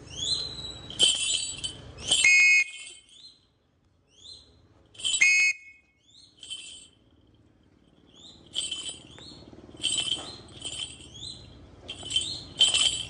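Shikra calling in bursts of short, shrill, high-pitched notes, each with a quick upward inflection, with brief pauses between the bursts.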